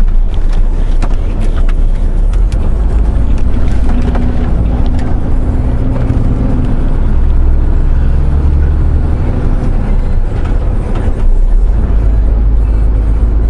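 Heavy truck's diesel engine and cab noise heard from inside the cab as the truck pulls away from a roundabout and gathers speed: a loud, deep, steady rumble with a few light clicks.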